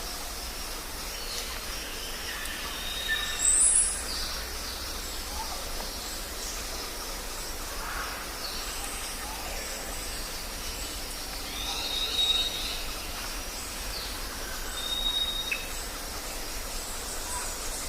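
Jungle ambience: many birds calling with short whistles and chirps over a steady high hiss and a low rumble. A loud, sharp call rising to a high pitch stands out about three and a half seconds in.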